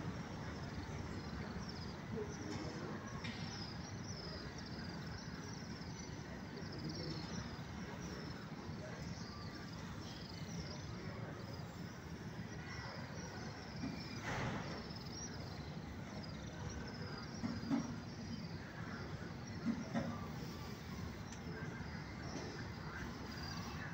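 Outdoor street ambience: a steady low hum of traffic with short high chirps repeating every second or so, a louder rush about halfway, and two brief knocks later on.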